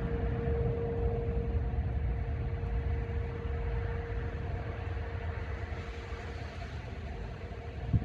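Distant outdoor warning siren sounding a steady tone during a siren test, fading away over the first few seconds, over a steady low rumble.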